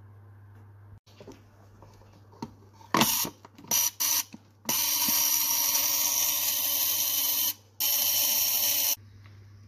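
Ford Model T trembler (vibrator) ignition coil buzzing on a coil tester as it is tested for use. A few short buzzes come first, then a steady loud buzz for about three seconds, a brief break, and another second of buzzing.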